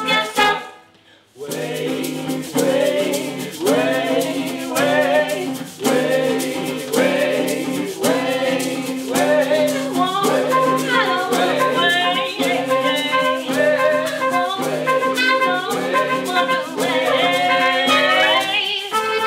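Small acoustic band playing an upbeat gypsy-style song on accordion, violin, acoustic guitars and trumpet, with a shaker and singing. The music breaks off for a moment about a second in, then comes back in.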